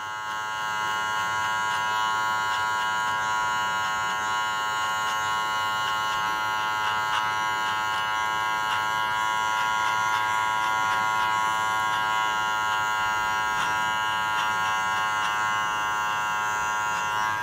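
Electric hair clippers buzzing steadily while cutting hair, fading the sides of the head at the temples.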